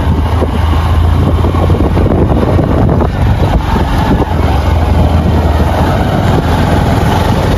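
Motorbike engine running while riding down a rough dirt track, with a steady low rumble heavy in the bass.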